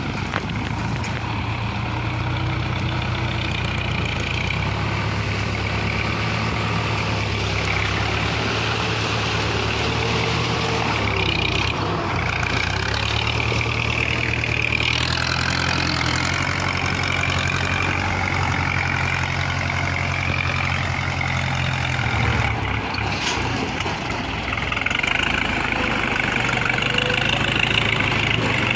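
A farm tractor's diesel engine running steadily, its note changing about four seconds in and again about three-quarters of the way through.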